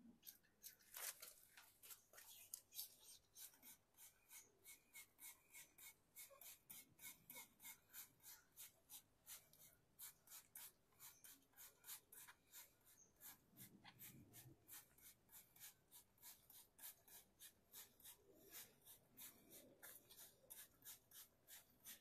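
Trigger spray bottle squeezed rapidly over and over, each squeeze a short hiss of spray, about three to four a second.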